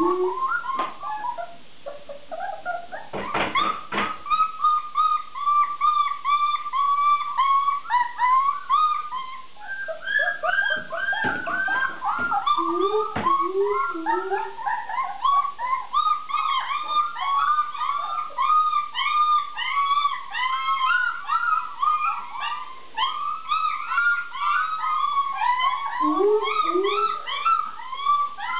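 A litter of puppies whining and yelping in a near-continuous, overlapping racket of short, high-pitched cries. A few lower cries come in around the middle and near the end, and a few knocks sound about three seconds in.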